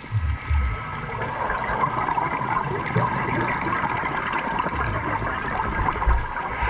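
Underwater ambience heard through a dive camera's housing: a steady crackling hiss of water noise, with a few low thumps near the start and again about six seconds in.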